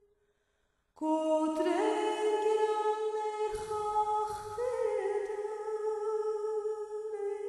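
A single unaccompanied voice singing a slow melody in long held notes. It starts about a second in after a moment of near silence, and a brief low rumble comes under it about halfway through.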